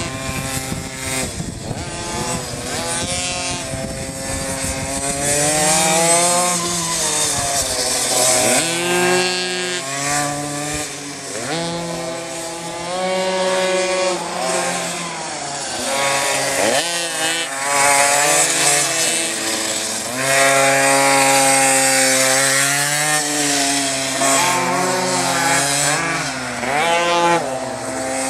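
Pocket bike's small two-stroke engine revving hard. Its high whine climbs, holds at high revs, then drops away and picks up again, over and over as the bike laps the track.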